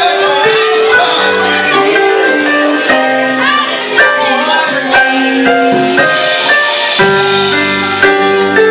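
A band playing music: a melody of held notes, some sliding up and down in pitch, over sustained chords.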